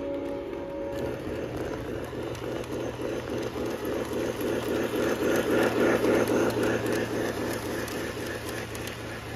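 Lionel O-gauge model train running past on its track: a quick, even rhythmic pulsing over a steady low hum, growing louder to a peak about two-thirds of the way through, then easing off.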